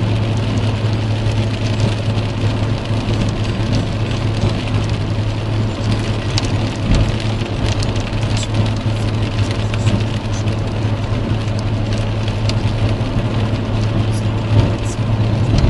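Heavy rain pattering on a car's roof and windscreen over the steady low drone of the engine and tyres on a wet road, heard from inside the cabin at motorway speed.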